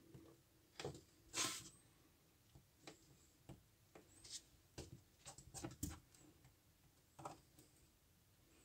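Faint, irregular clicks and scrapes of OO gauge model railway track, plastic sleepers and metal rails, being pressed and slid into place by hand on a wooden baseboard. The loudest is a scrape about a second and a half in, with a cluster of small clicks around five to six seconds in.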